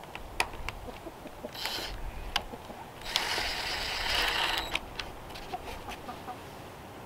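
Cordless drill driving small screws through a tarp's grommets into a wooden frame. There is a short whir about a second and a half in, then a louder run lasting about a second and a half, with scattered clicks and taps from handling.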